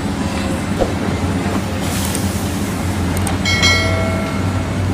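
Caterpillar 365C L hydraulic excavator working a dig, its diesel engine running steadily under load. A brief squeal comes in about three and a half seconds in.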